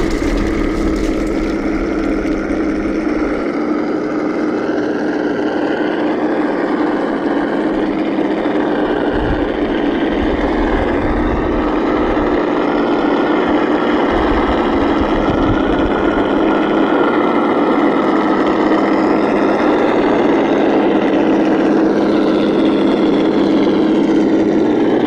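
Simulated V8 engine sound from an RC crawler's ESS-One sound module, running steadily with a pitch that wavers slightly, mixed with the electric drivetrain's whine as the truck drives.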